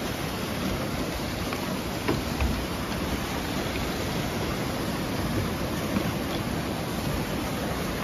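Steady rushing of a waterfall and stream, with a few light footfalls on wooden steps.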